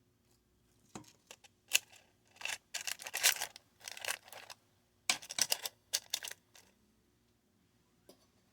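Food-preparation handling noises: a dense run of sharp clicks, taps and scraping rustles. They start about a second in and stop near seven seconds, with one more click near the end.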